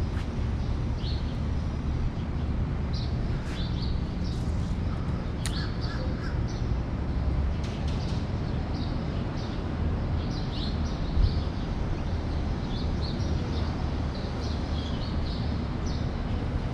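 Birds giving many short, high calls, some harsh and crow-like, over a steady low rumble.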